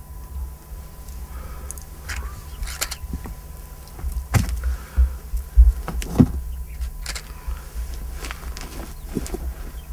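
Bundle of dry brush twigs catching fire in the hand, crackling and rustling with scattered sharp snaps. The snaps are loudest a few seconds in, over a steady low rumble.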